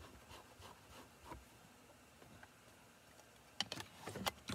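Faint rubbing of a cloth wiping ink off a rubber stamp on a clear acrylic plate, then, about three and a half seconds in, a quick run of sharp plastic clicks and taps as a plastic ink pad is handled.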